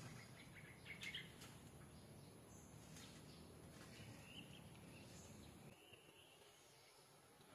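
Near silence with faint bird chirps and a few soft clicks about a second in; a low background rumble drops away near the end.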